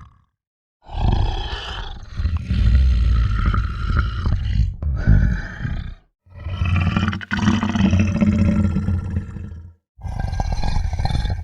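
Monster sound effects: three long, rough, guttural roars, one after another with short silences between.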